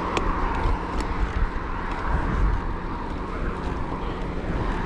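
Wind rumbling on an action camera's microphone while cycling, mixed with the steady rolling noise of the ride. A couple of faint clicks in the first second.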